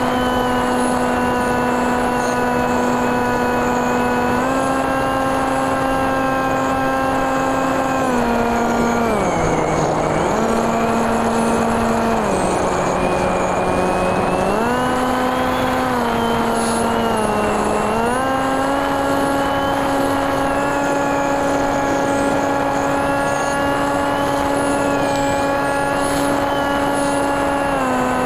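Brushless electric motor and 8x6 propeller of a TekSumo FPV plane, heard through the onboard camera: a steady buzzing whine over rushing wind noise. It drops in pitch as the throttle is eased about a third of the way in, again near the middle and briefly past halfway, then climbs back each time.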